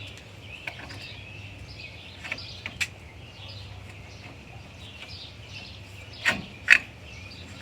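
A few light clicks, then two sharper metal knocks about six seconds in, as parts of a hitch-mounted bike carrier are moved and set in place. Birds chirp faintly in the background.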